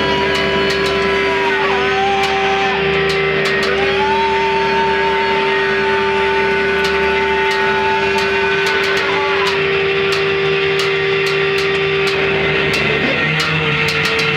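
Live experimental noise music: one steady drone held on a single pitch, with higher tones sliding to new pitches and holding over it, and scattered crackling clicks. Near the end the drone stops and a new held tone takes over.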